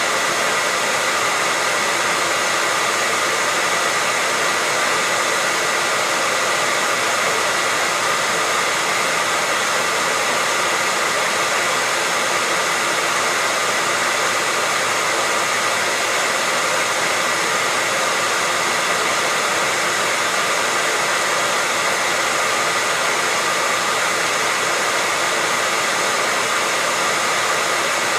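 Hair dryer running steadily: an even, unbroken whoosh of blown air with a steady whine from the motor.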